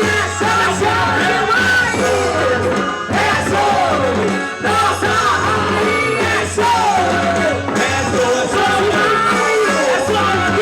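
Music for a festa junina quadrilha: a singing voice over a steady low bass line.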